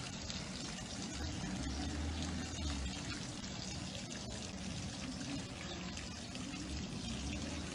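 Water running steadily from a garden hose into a tub, a low even rush.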